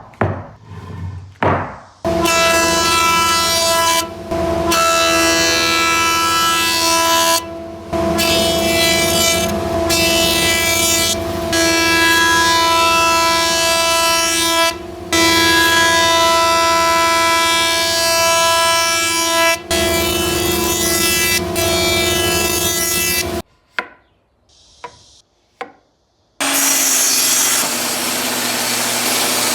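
A woodworking power tool motor running with a steady, high, multi-tone whine, broken several times by brief drop-outs. Near the end comes a quieter spell, then a steady hiss with a low hum.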